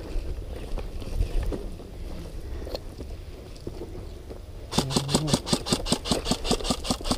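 Footsteps and gear rustling, then, about two-thirds of the way in, an airsoft rifle fires a rapid, evenly spaced string of shots on full auto, a sharp clatter that keeps going to the end.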